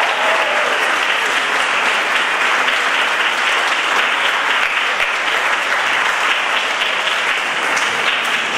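Audience applauding steadily, dense clapping of many hands in a hall.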